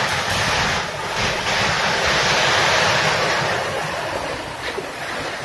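Heavy storm rain and strong wind making a steady, loud roar, with wind buffeting the phone's microphone. It eases slightly near the end.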